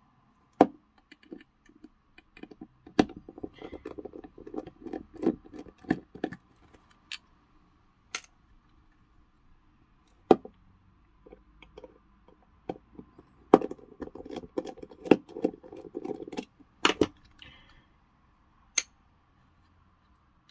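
A precision screwdriver turning small screws out of a plastic security-camera housing: two stretches of quick small clicks and rattles as the screws are worked, with scattered sharper clicks and taps of metal on plastic in between.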